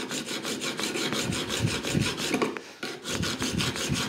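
Hand file worked in quick, even strokes across the edge of a hardened-steel card scraper cut from an old handsaw blade, with a brief break about three seconds in. The filing dresses the ground-cut edges and takes off their burr.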